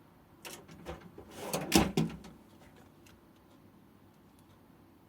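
Rummaging and clattering of hand tools as a pair of cutters is picked up, with a few light knocks and then a louder burst of clatter about a second and a half in.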